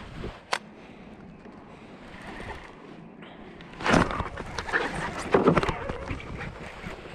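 Handling noise on a body-mounted camera: jacket fabric and an arm rubbing and knocking against the mic, a run of loud irregular scrapes and thumps starting about four seconds in. There is one sharp click about half a second in.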